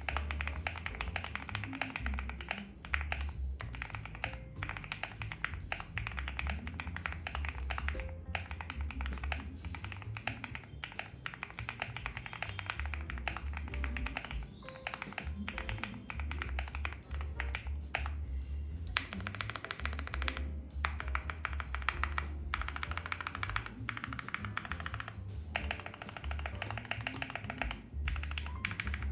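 Continuous fast typing on a QK75 mechanical keyboard fitted with lubed Gateron CJ linear switches, PBT keycaps and a painter's-tape mod: a dense run of keystroke clacks. Background music with a steady bass beat plays along.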